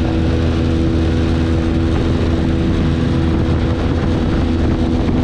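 Motorboat engine running steadily at cruising speed: an even drone with a few held tones, over a steady rush of wind and water.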